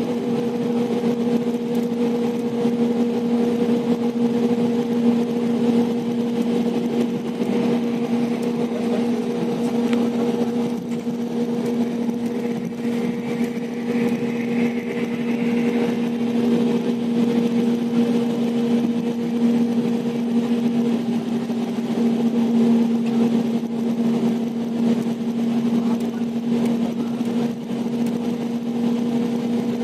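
Cabin noise of an air-conditioned coach bus at highway speed: a steady low hum over engine and road noise.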